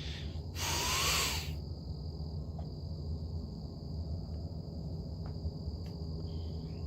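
Night-time outdoor ambience: a steady high-pitched chirring of crickets over a constant low hum, with a brief rushing noise about a second in.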